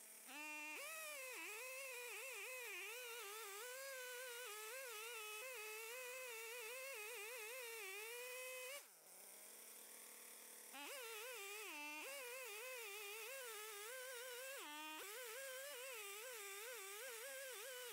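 Stihl 880's big two-stroke chainsaw engine running at high throttle as it rips a red oak log in a chainsaw mill, its pitch wavering with the load of the cut. About halfway through the throttle drops and the engine falls to a low idle for about two seconds, then opens up again, with two brief dips in revs after that.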